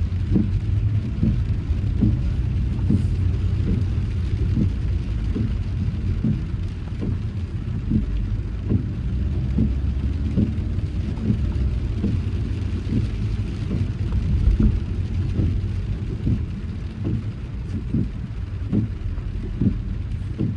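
Car driving in heavy rain: a steady low road and engine rumble with a light rain hiss, and soft thumps about twice a second.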